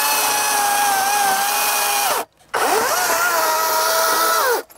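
Battery-powered EGO 16-inch chainsaw, its electric motor whining as the chain cuts wood. The pitch sags and the saw stops about two seconds in, then it spins back up, runs steadily and winds down just before the end.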